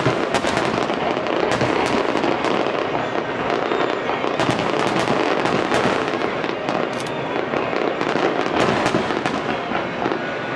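Fireworks finale: a dense, unbroken barrage of shell bursts and crackling, with many sharp bangs in quick succession.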